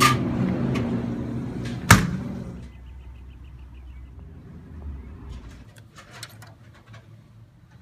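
A glass-door drinks cooler swinging shut with a single sharp bang about two seconds in, over a steady low hum that fades soon after. Faint scattered clicks follow.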